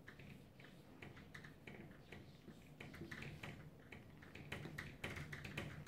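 Dry-erase marker squeaking and tapping on a whiteboard as numbers are written: a faint, irregular run of short strokes.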